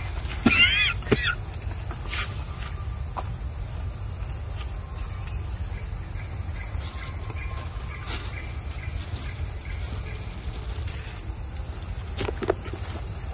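Steady high drone of insects chirring. About half a second in comes a brief, high squeal with several rising-and-falling notes, and near the end a few soft knocks.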